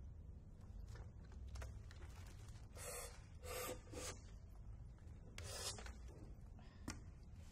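Quiet pause after the music stops: a few short breathy coughs about three to four seconds in and again at five and a half, and a single soft click near the end, over a low steady hum of the hall.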